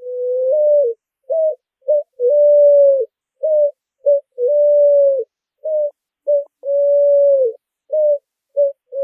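Wooden asa-branca (picazuro pigeon) bird call blown in a cooing pattern: long drawn notes that drop in pitch at the end alternate with short notes, about a dozen in all. The tone is clear and steady, without hiss.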